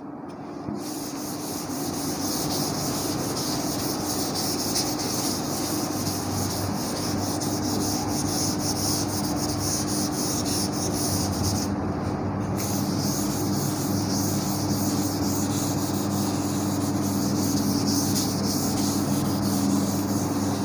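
A blackboard duster wiping chalk off a chalkboard in continuous scrubbing strokes, with a short break about 12 seconds in.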